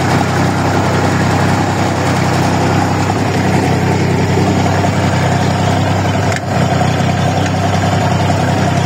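Old diesel tractor engine running steadily as the tractor is driven, with a brief dip in level about six seconds in.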